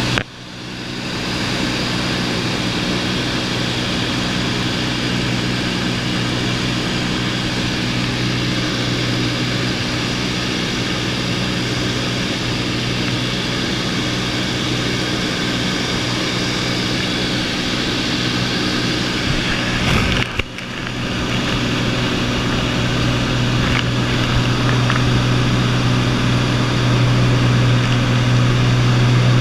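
Light high-wing aircraft's engine and propeller droning steadily with airflow noise, heard from inside the cabin as a deep, even hum. The sound dips briefly and swells back twice, just after the start and about two-thirds of the way through.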